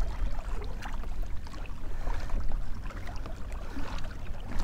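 Choppy water splashing and lapping against a kayak hull as it moves, with scattered small clicks and knocks. A steady low wind rumble on the microphone runs underneath.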